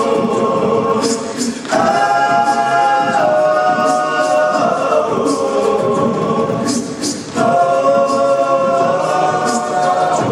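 All-male a cappella group singing held chords in close harmony. The chord breaks off and a new one comes in about two seconds in, and again about seven seconds in.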